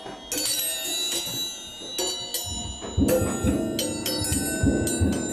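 Hanging metal forks and spoons struck by hand, ringing like bells with many overlapping high tones. From about halfway in, dull low thumps join the ringing.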